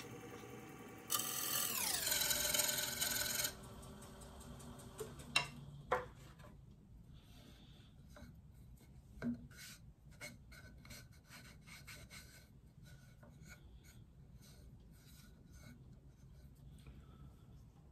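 Wood lathe turning a walnut and cherry bowl: a gouge cuts for about two seconds while the lathe's motor whine falls in pitch as it spins down. A few knocks follow, then faint rubbing as a hand feels the surface of the stopped wooden bowl.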